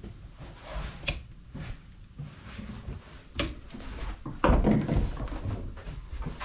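Clicks, knocks and rustling of hand work in a small room, with a sharp click about a second in, another about three and a half seconds in, and a louder knock about four and a half seconds in.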